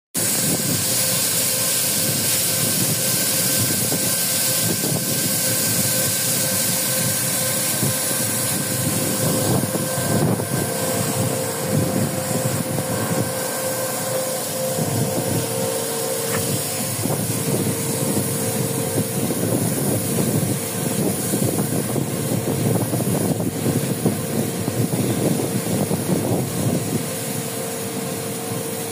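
Fishing vessel's machinery running steadily: a loud, even hiss with a faint steady hum.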